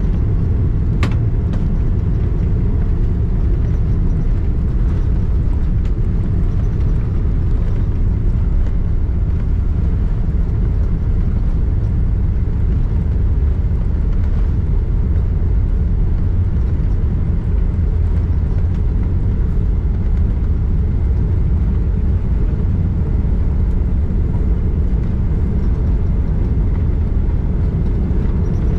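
Steady low rumble of cabin noise inside a Boeing 787-9 Dreamliner, heard from a window seat, with one faint click about a second in.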